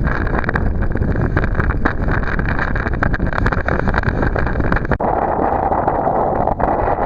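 Small boat's outboard motor running under way, with wind buffeting the microphone; the engine note shifts about five seconds in.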